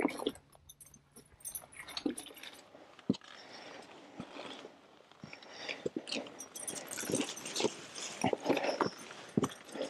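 Footsteps crunching and scuffing on loose rock and gravel along a stony trail, in an uneven walking rhythm, with a light metallic jingle now and then.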